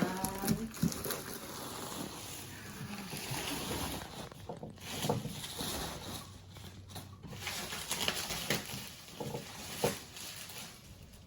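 Plastic packaging being handled and unwrapped: irregular rustling and crinkling with scattered small knocks.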